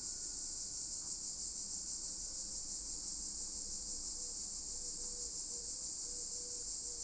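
A steady high-pitched hiss, even and unbroken, with nothing else standing out.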